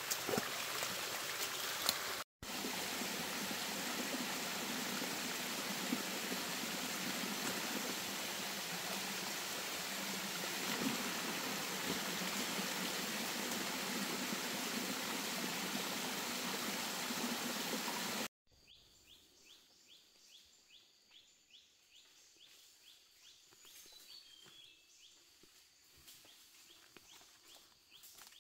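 Forest stream rushing over rocks, a steady even hiss of water. About two-thirds of the way through it cuts to a much quieter forest with faint, evenly repeated high chirps.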